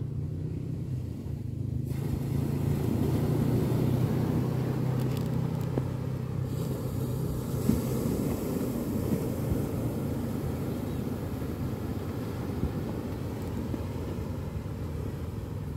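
Sea waves washing onto the beach, a steady rushing surf that swells a couple of seconds in, with low wind rumble on the microphone. A low steady hum runs under it through the first half and fades out.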